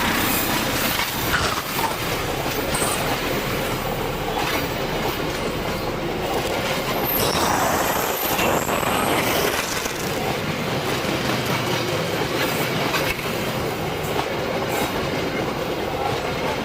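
Train rolling along the rails in a steady, loud clatter of wheels, with thin high wheel squeals around the middle.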